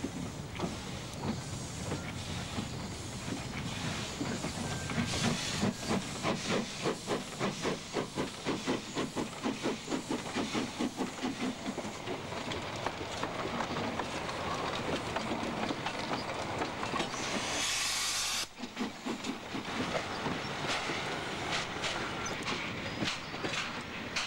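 Steam locomotive working, its exhaust chuffing at about two beats a second, then a loud, short hiss of escaping steam, followed by the clicking of coach wheels over rail joints as the train rolls by.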